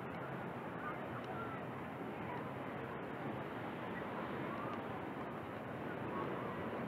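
Steady outdoor rushing noise of wind and sea, with faint, indistinct voices of people in the distance.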